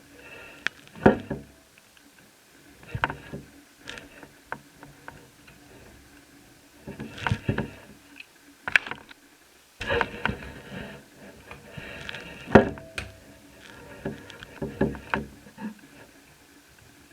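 Irregular clicks and knocks of a laptop being taken apart by hand: a screwdriver and fingers working the plastic lower case and motherboard as it is unscrewed and freed. The sharpest knocks come about a second in and again about three quarters of the way through.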